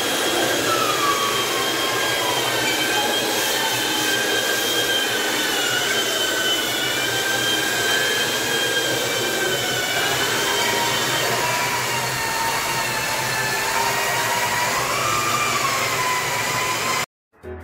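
Two electric wall-putty sanders with dust-collection hoses running steadily against a ceiling: a whirring motor-and-fan noise with whines that wander in pitch as the sanding heads are pressed and moved. The sound cuts off abruptly near the end.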